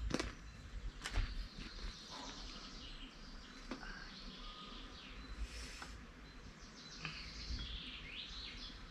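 Small birds chirping in quiet open-air ambience, with a flurry of quick high rising and falling notes near the end. A few sharp knocks come in the first second and a half.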